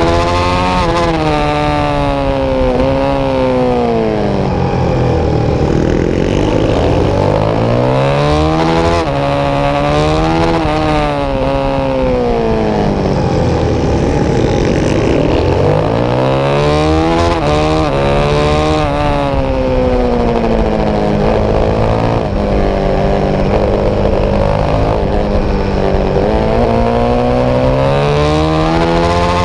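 Supermoto motorcycle's single-cylinder engine at race pace, rising in pitch through each gear and falling away under braking and downshifts into the corners, over wind rush on the helmet camera.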